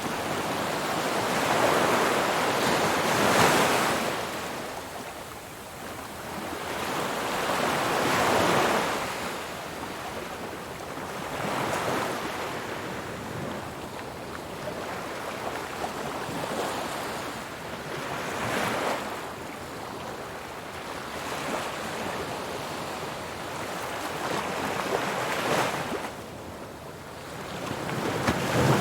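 Ocean surf: waves breaking and washing in, swelling and fading about five times, the loudest surge about three seconds in.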